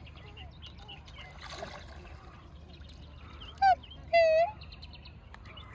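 Black swan calling twice: a short, high, clear call about three and a half seconds in, then a longer one just after it. Faint chirps of other birds underneath.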